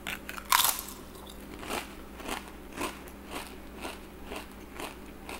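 A person biting into a crisp Lay's Magic Masala potato chip with one loud crunch about half a second in, then chewing it with short crunches about twice a second.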